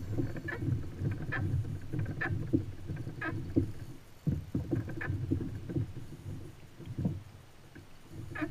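Water sloshing and slapping against a plastic fishing kayak's hull, with irregular short sharp ticks about once a second; quieter in the second half.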